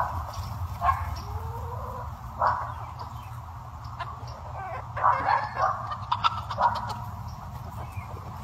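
About a dozen short, sharp animal calls at irregular intervals, coming thickest near the end, over a steady low rumble.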